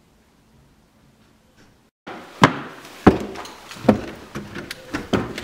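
A quiet room for about two seconds, then footsteps of boots on a wooden floor: six or so hard footfalls about two-thirds of a second apart, the first two the loudest.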